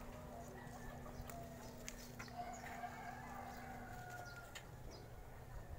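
Faint rooster crowing: one long drawn-out call that falls slightly, from about two seconds in. A steady low hum stops about four seconds in, and a few light clicks sound underneath.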